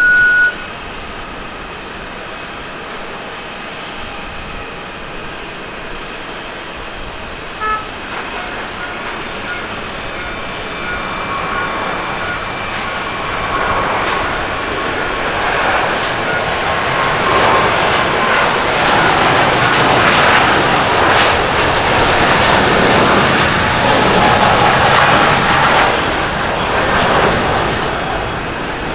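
Boeing 777-300ER's GE90-115B jet engines at takeoff power, the engine noise building over about ten seconds and staying loud through the takeoff roll and lift-off, easing a little near the end. A short, loud high beep right at the start.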